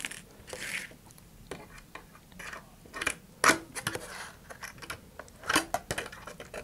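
Pliers and other hand tools picked up and set down on a cutting mat while a paper-tube model rocket is turned over: scattered clicks, knocks and a short rustle, the sharpest knocks about three and a half and five and a half seconds in.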